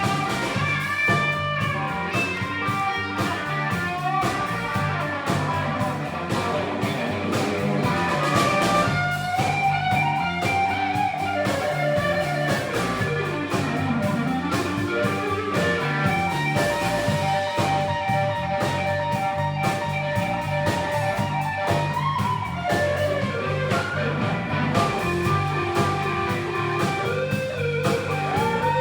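Live electric blues guitar solo over the band's steady bass and drum groove, the lead line full of notes bent up and down in pitch.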